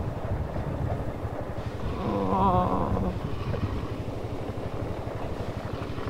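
Vehicle engine running with a rough low rumble and wind buffeting the microphone while on the move, with a short wavering pitched sound about two seconds in.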